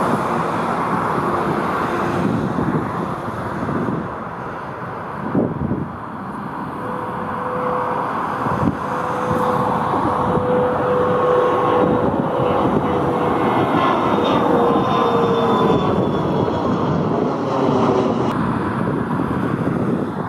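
Jet airliner engines running loud as a plane passes, a deep rushing roar with a steady whine that drifts slowly lower in pitch through the middle of the passage.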